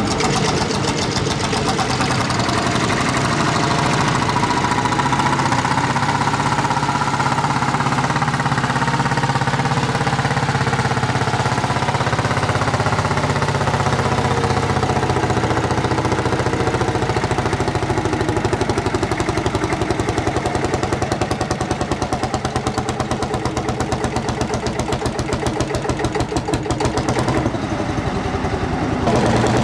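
Single-cylinder hot-bulb two-stroke engine of a Lanz Bulldog-type tractor running under load as it pulls a weight-transfer sled, a steady, rapid chugging beat.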